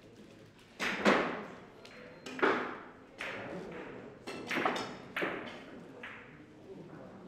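Russian pyramid billiard balls clacking: a series of about eight sharp clicks of cue tips striking and balls knocking into one another, the loudest about a second in and again about two and a half seconds in.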